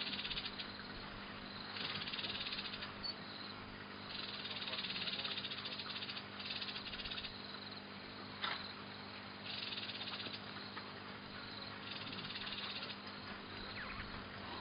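Repeated high-pitched rattling trills, each lasting about a second and coming every couple of seconds, from a small animal calling. A single sharp click comes about eight and a half seconds in.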